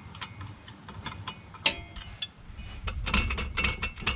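Irregular metallic clicks and clinks of hand tools, spanners and sockets, being handled, some with a brief ring. One sharper clink comes nearly two seconds in, and the clinks grow busier about three seconds in.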